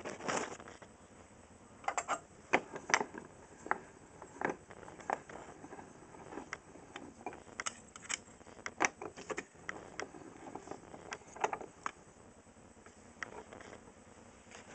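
Light, irregular clicks and knocks of handling: a small metal clock part being set down and shifted about on a wooden workbench.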